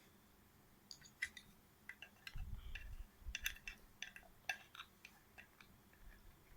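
Small plastic toy pieces clicking and tapping together as they are handled and fitted into place, a scattered run of light clicks.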